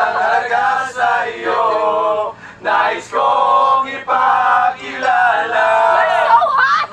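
A group of people, men and women, singing together loudly in short phrases with brief breaks between them.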